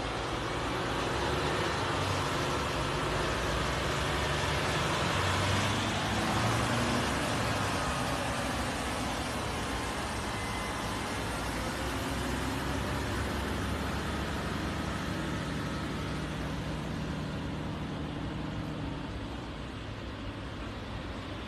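Road traffic noise: passing cars over the low drone of heavy trucks' diesel engines pulling a slow heavy-load convoy, swelling about five to seven seconds in.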